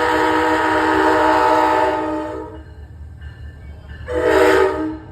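VRE commuter train's horn sounding: a long blast that cuts off about two and a half seconds in, then a short blast of about a second near the end, over the low rumble of the train.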